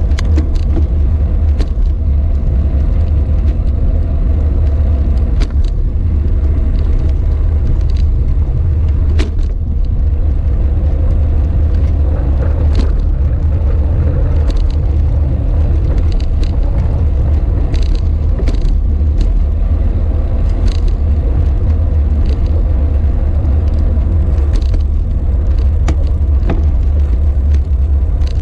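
Steady wind rumble on a bicycle-mounted camera's microphone, mixed with tyre noise on asphalt while riding, and scattered sharp clicks and ticks.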